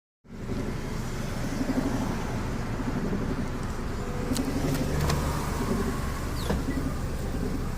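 1996 Toyota Corolla's engine labouring and running unevenly, heard from inside the cabin, with a few sharp clicks about halfway through.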